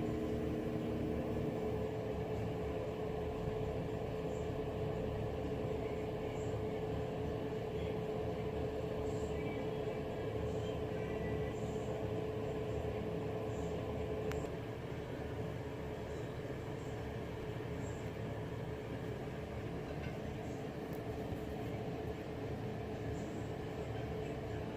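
Panasonic NA-F70S7 washing machine running its Tub Hygiene cleaning cycle: a steady mechanical hum with a steady tone that stops about halfway through, after which the running sound is a little quieter.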